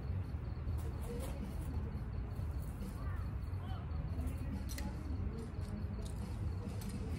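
Steady low rumble of outdoor background noise, with a few faint chirps about three to four seconds in and an occasional light click.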